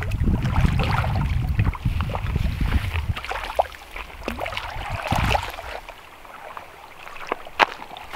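Water sloshing and splashing over a low rumble of wind on the microphone, heaviest in the first three seconds and again briefly around five seconds in, while a hooked fish is played close to the bank.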